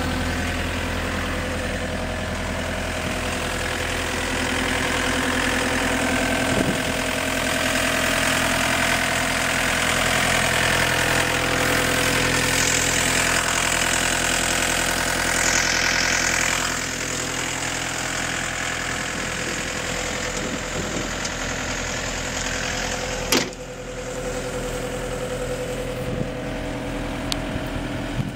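IHI CL35 tracked skid steer's diesel engine running, growing louder with a higher whine over it from about four seconds in, then settling back to a steady idle a little past halfway. Near the end, a single sharp click.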